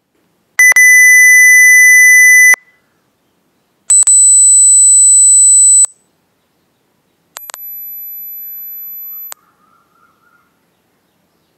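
Smartphone hardware-test app playing its earphone-and-microphone test tones: three steady electronic beeps of about two seconds each with short gaps between them. Each beep is higher than the last, and the third, highest one is much quieter.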